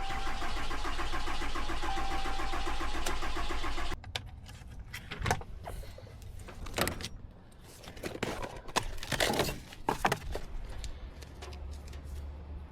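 A diesel truck engine cranking on its starter for about four seconds without catching, then cutting off suddenly: a no-start. Scattered clicks and clunks follow.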